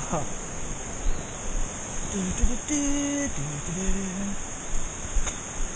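Insects droning steadily at a high pitch, with several dull thumps of footsteps on a dirt trail and a brief wordless voice in the middle.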